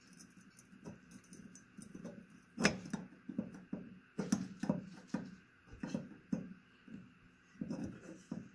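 Hand screwdriver turning out the screw that holds a ceiling fan's metal mounting bracket to the ceiling box: a run of irregular clicks and knocks of metal, with one louder knock about three seconds in.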